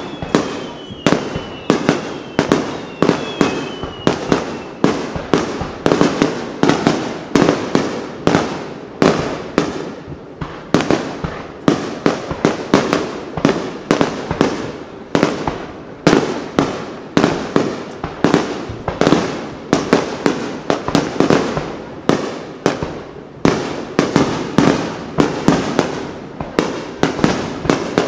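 Rapid barrage of aerial firework shells bursting overhead: loud, sharp booms following one another about two or three times a second, without a break.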